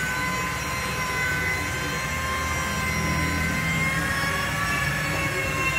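Steady machine noise: a whine of several held tones that drift slightly in pitch, over a low rumble.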